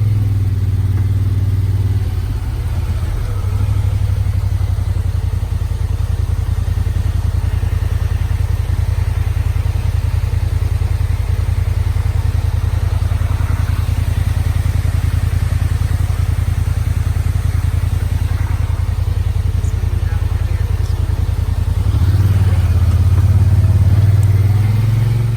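Off-road vehicle's engine running steadily as it drives, getting louder for a couple of seconds near the end.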